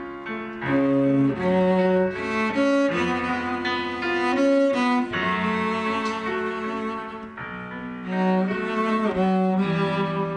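Cello and piano playing together: the cello bows a melody of held notes over a piano accompaniment.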